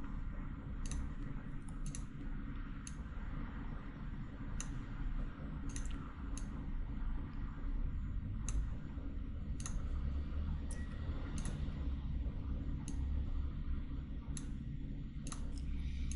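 Computer mouse buttons clicking singly at irregular intervals, roughly one a second, over a low steady background hum.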